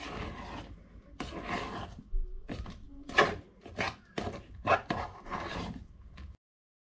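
Spoon stirring and scraping through whipped cream mixed with chopped chocolate and banana in a stainless steel bowl: a run of irregular scraping strokes that cuts off suddenly near the end.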